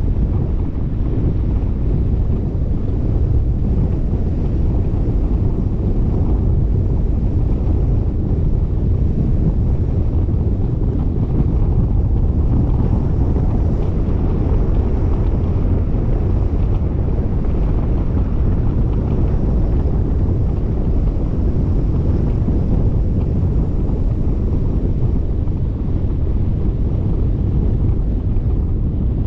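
Wind buffeting the microphone: a steady, loud low rumble with no engine note or other distinct sound standing out.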